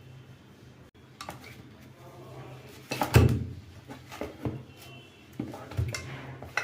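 Clicks and knocks of a door lock's metal parts being handled, with the loudest knock about three seconds in and several lighter ones after it.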